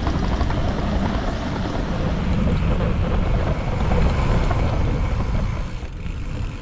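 Wind rushing over the microphone of a moving bicycle rider, a loud, dense, low rumble that eases off about six seconds in.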